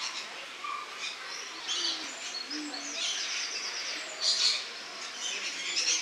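Rainbow lorikeets giving shrill screeches and chattering calls in short repeated bouts, with a fast rattling trill around the middle.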